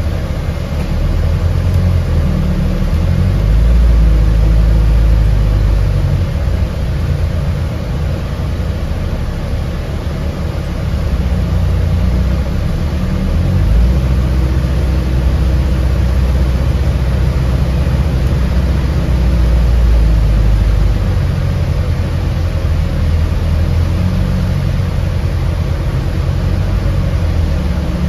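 Alexander Dennis Enviro400H City hybrid double-decker bus running, heard from inside the passenger saloon: a steady low drivetrain and road rumble that grows and eases in strength.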